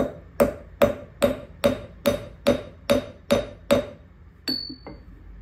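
Ball-peen hammer striking a hot O1 tool-steel rod on an anvil, forging a flat screwdriver tip: about ten sharp metallic blows at a little over two a second. Near the end comes one more clank with a brief high ring.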